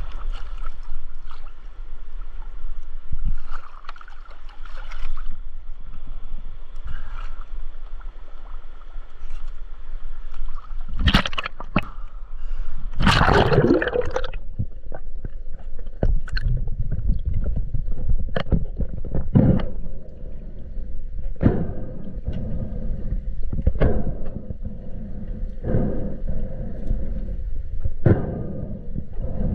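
River water sloshing and gurgling close to the microphone, with two louder splashes about eleven and thirteen seconds in, then a run of short, sharp gurgles.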